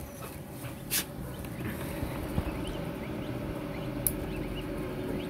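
Newly hatched chukar partridge chicks peeping faintly on a hatching tray, the peeps growing more frequent in the second half, over the steady hum of the incubator. Two sharp clicks, about a second in and near four seconds, as the incubator is opened.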